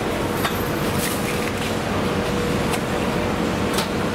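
Steady hum of a busy street with traffic, broken by a few scattered sharp knocks and clicks as meat is handled on a wooden chopping block and packed into a foam lunch box.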